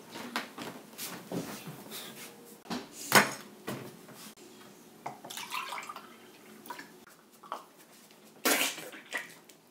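Scattered clicks, knocks and light clatter of household objects being handled, the sharpest knock about three seconds in, with a short burst of noise near the end.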